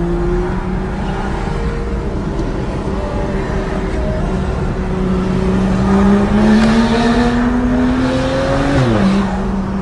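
Car engine heard from inside the cabin while accelerating: its pitch climbs slowly and steadily for most of the time, then drops sharply near the end as the gearbox shifts up, over a constant road rumble.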